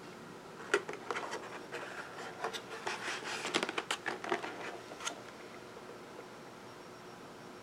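Clear plastic clamshell food container being opened and handled: the thin plastic crackles and clicks, with a sharp snap under a second in, for about four seconds, then stops.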